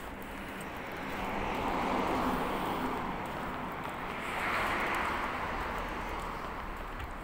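Road traffic passing on a city street: tyre and engine noise swells up and fades twice, over a steady low engine hum.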